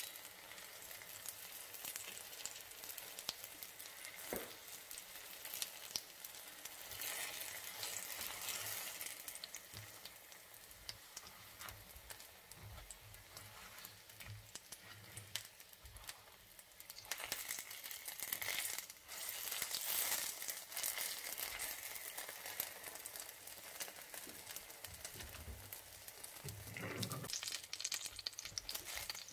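Apple rolls in spring-roll wrappers frying in oil and bubbling caramelised sugar in a pan: a steady sizzle of fine crackles, louder in stretches near the middle. A knock or two as tongs turn the rolls against the pan.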